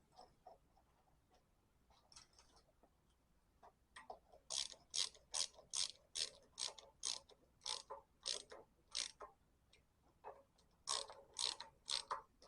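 Hand socket ratchet being worked in quick strokes, its pawl clicking about two to three times a second, in a run of about ten clicks, then a pause and three more near the end.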